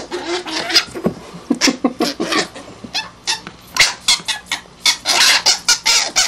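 A baby mink and a cat play-fighting: a rapid, continuous run of short hisses and squeals that starts suddenly.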